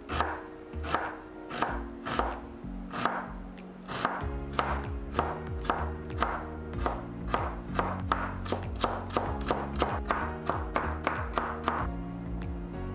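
Kitchen knife chopping onion and then carrot on a wooden cutting board: slow, even strokes at first, then quicker chopping at about three strokes a second, stopping about a second before the end. Background music plays under it.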